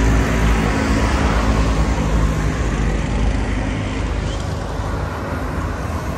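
Road traffic by the seafront: a car's engine hum fades out over the first few seconds, under a steady rushing noise.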